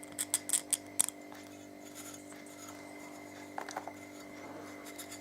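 Several quick, light clicks and taps of small objects being handled at the workbench, clustered in the first second with a few softer ones near the end of the fourth second, over a steady electrical hum.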